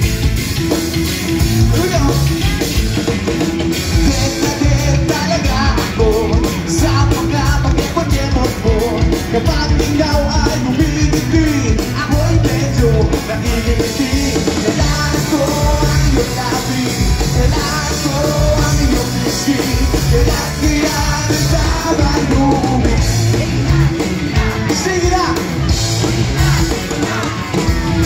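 Rock band playing live at full volume, a male lead singer singing over a drum kit and band.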